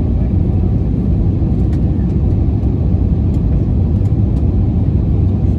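Steady low rumble of jet airliner cabin noise during the descent: engine and airflow noise heard from inside the passenger cabin.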